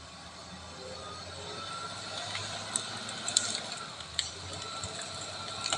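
Wheel loader's diesel engine running steadily with a thin whine, and several sharp metallic knocks in the second half.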